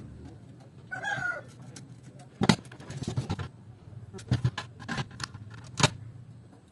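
Sharp metal clicks and knocks of a screwdriver and small parts handled against a DVD player's sheet-steel chassis, a dozen or so scattered irregularly, the loudest about two and a half seconds in and again near the end. About a second in there is a brief wavering bird call.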